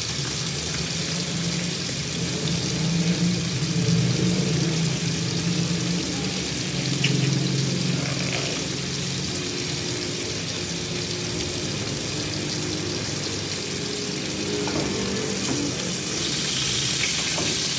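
Chorizo sausages sizzling in a frying pan over a gas burner, a steady hiss that grows louder and brighter near the end.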